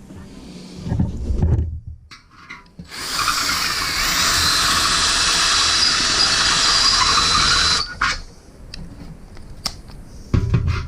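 Power tool grinding metal: a steady, high-pitched grinding that starts about three seconds in and stops about five seconds later, followed by a few light clicks. It is trimming the metal so the thermometer bezel will seat properly in the grill lid.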